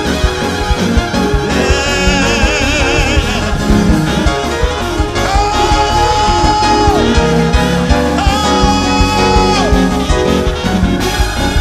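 Fast gospel praise-break music from a church band: driving drums and bass, with long held high notes over the top.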